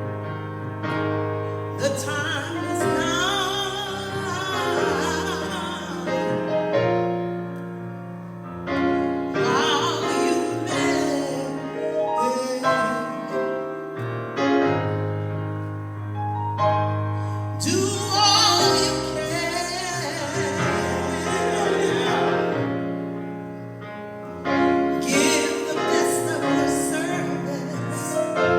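Live gospel song: a solo singer with wavering, drawn-out notes over sustained keyboard chords and a low bass line.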